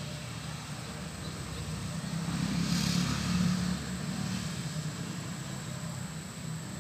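A motor vehicle passing: a low engine hum that grows to its loudest about three seconds in and then fades back into a steady background hum.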